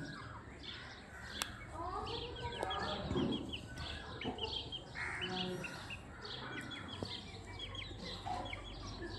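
Chickens clucking, with a scatter of quick high chirps throughout.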